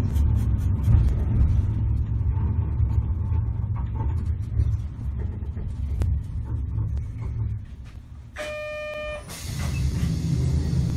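Sapporo streetcar heard from on board: a strong low running rumble that fades away about eight seconds in as the tram slows. A short electronic chime of under a second follows, then a sudden broad hiss with the low rumble coming back.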